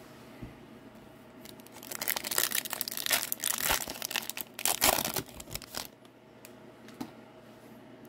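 Wrapper of a 2023-24 Upper Deck Series 2 hockey card pack being torn open and crinkled by hand, in a dense flurry of crinkling that starts about two seconds in and lasts about four seconds.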